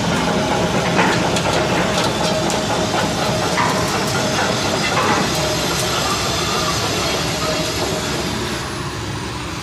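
Caterpillar 320D hydraulic excavator's diesel engine running under load, with a run of sharp metallic clanks in the first half, typical of steel tracks and machine parts as it is unloaded. A high whine slides down in pitch near the end, as the noise eases a little.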